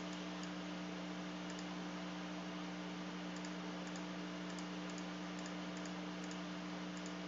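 Faint, scattered clicks from working a computer, as numbers are entered into an on-screen calculator, over a steady low electrical hum.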